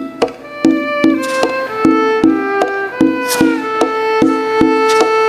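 Instrumental festa junina music: a sustained, fiddle-like melody line stepping through held notes over a steady beat of about two and a half strikes a second.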